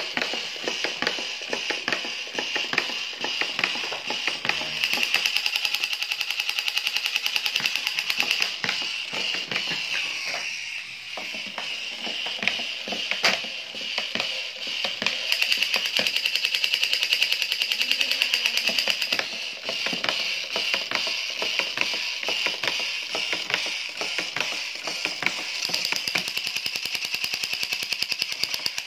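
Battery-operated crawling Captain America toy soldier running, its electronic machine-gun sound effect rattling rapidly in long bursts with brief lulls.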